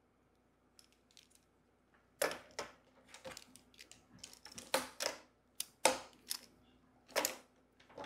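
Plastic magnetic tiles and fence pieces clicking as they snap together and are set down on a wooden table: a string of sharp, irregular clacks starting about two seconds in.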